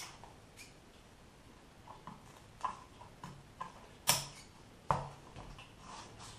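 Scattered light clicks and taps of hand work cutting and handling small strips of sticky-backed Velcro, with two sharper clicks about four and five seconds in.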